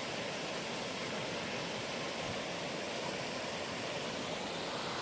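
Steady, even rushing of a mountain valley stream, with no breaks.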